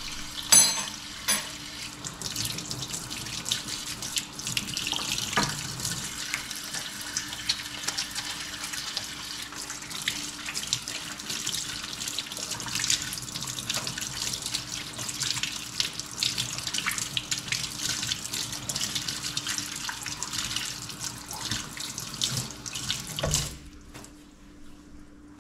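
Kitchen faucet running into a stainless steel sink while hands are washed under the stream, with a couple of sharp knocks near the start. The water stops with a knock near the end as the faucet is turned off.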